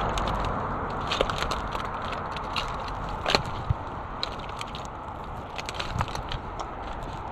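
Plastic litter being handled and gathered: irregular sharp crackles and clicks, a sharper snap about three seconds in, over a steady rushing background.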